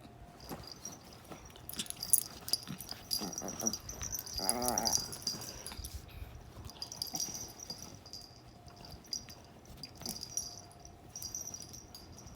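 Dogs playing rough: growls, scuffling and yips, with a short whining cry about four and a half seconds in.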